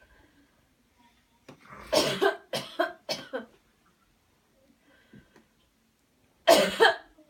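A person coughing hard in two bouts: a run of about four forceful coughs a couple of seconds in, then another run starting near the end.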